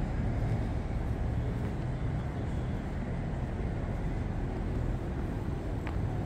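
City street ambience: a steady low rumble of traffic, with a brief high tick near the end.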